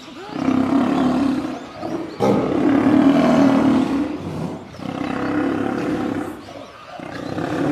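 Lions snarling and growling in a fight: four long, rough bouts, each a second or two long, with short breaks between them.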